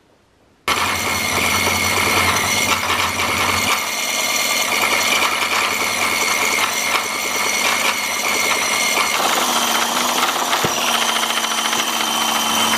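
Toyan V8 petrol model engine being spun over by its electric starter: a steady fast mechanical clatter with a whine, starting about a second in. It is cranking over without running, as the builder cannot get it to start.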